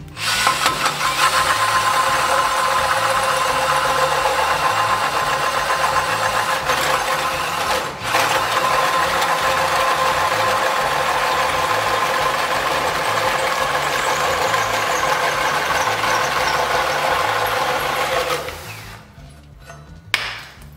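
Einhell 18 V brushless drill/driver in low gear (speed 1) driving a 79 mm hole saw, slightly bent and missing one carbide tooth, through a wooden board. The motor whines steadily with the rasp of the saw cutting and dips briefly about eight seconds in. It stops a couple of seconds before the end once the saw is through, having cut easily.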